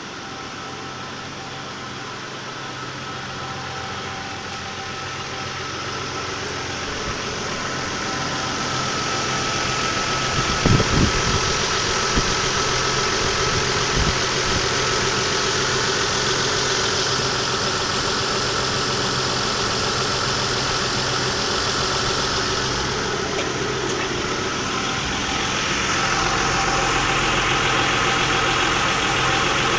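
Isuzu Trooper engine idling steadily, with only a very slight ticking: it now sounds normal. The sound grows louder over the first several seconds, and a few sharp knocks come near the middle.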